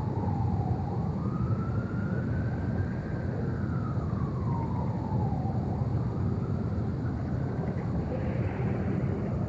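A distant siren wailing, its pitch rising and falling slowly, over a steady low outdoor rumble.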